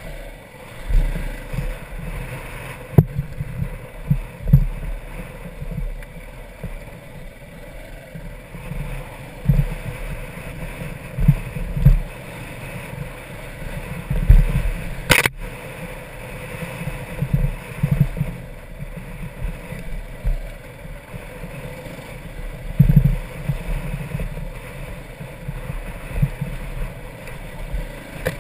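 Dirt bike being ridden over a rocky trail, heard from a camera mounted on the bike: the engine runs under uneven low rumbles and thumps from the rough ground. A single sharp click about fifteen seconds in.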